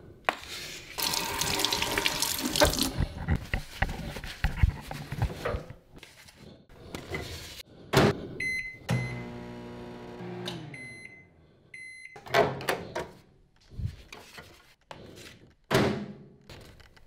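Kitchen sounds: a faucet runs for about two seconds, then a microwave's keypad beeps several times, a hum runs and slides down in pitch, two more beeps follow, and there are a few sharp clunks on the counter.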